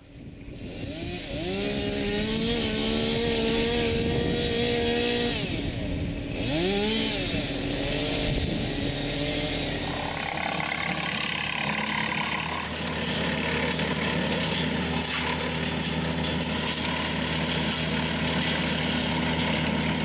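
Tractor-driven Woodland Mills TF46 PRO PTO wood chipper running and chipping branches: a steady machine drone with a whine that rises in pitch over the first couple of seconds and then holds. The pitch dips briefly and comes back about seven seconds in, and the sound changes character about halfway through.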